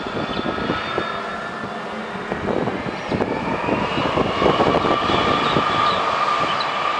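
Boeing 757 jet engines running as the freighter rolls along the runway, a steady rumble with a whine that rises from about three seconds in.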